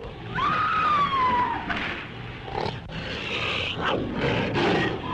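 Stop-motion monster-film creature roars from a dinosaur-and-giant-ape fight soundtrack: a long high screech that sags slowly in pitch, followed by rougher growling roars and a short rising cry.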